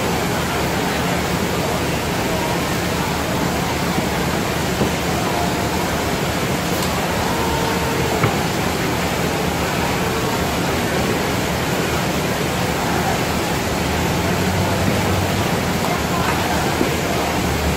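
Steady crowd hubbub: indistinct chatter of many people over a constant rush of background noise, with a couple of faint clicks.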